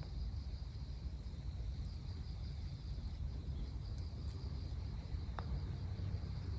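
Wind buffeting the microphone as a low rumble, over a steady chirring of insects.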